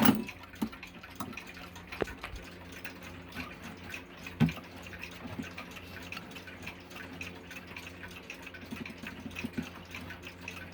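Five Rams mechanical alarm clock ticking quickly and evenly, with a few clicks and knocks from the clock being handled. The loudest is a thump about four and a half seconds in.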